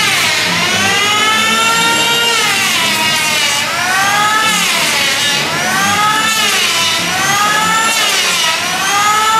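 A siren wailing, its pitch rising and falling about every one and a half seconds.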